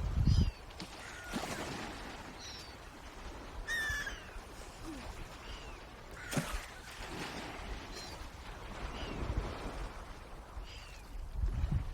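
Short, high bird calls, each a brief downward-sliding note, about eight of them at irregular intervals, the loudest about four seconds in. Wind rumbles on the microphone at the start and again near the end.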